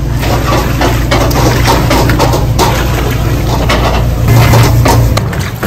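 Broth splashing as it is poured from a red strainer into a large stainless-steel stockpot, with scattered clatter. A steady low hum runs underneath and stops about five seconds in.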